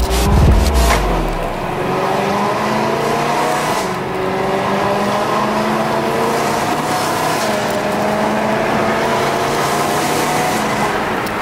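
A car engine accelerating through the gears, its pitch rising steadily and dropping back twice as it shifts up.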